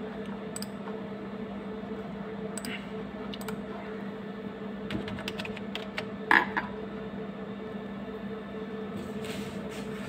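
Steady low hum of running equipment with a few short, scattered clicks of a computer mouse as menu items are selected, the loudest click a little past the middle.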